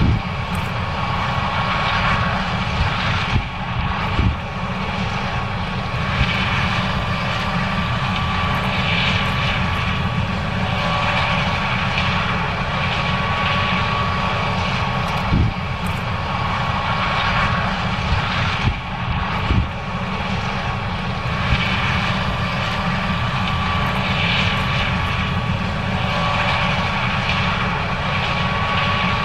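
John Deere S670 combine running steadily while harvesting corn: a continuous engine and machinery drone with a steady high whine over it and a few brief knocks.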